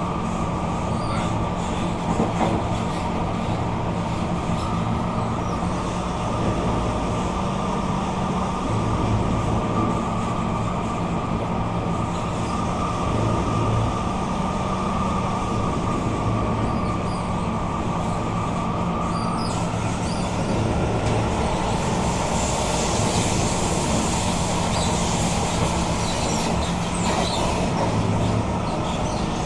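Kawasaki C151 metro train running, heard from inside the car: continuous wheel and running noise with a steady whine. About two-thirds in the whine drops a little and fades, and a hissing rises for the last several seconds.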